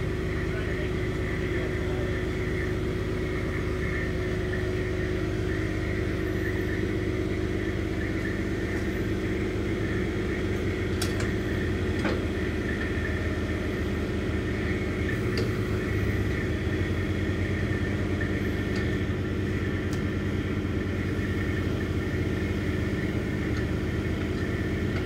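Heavy equipment engine running at a steady speed, with a few faint clicks and knocks.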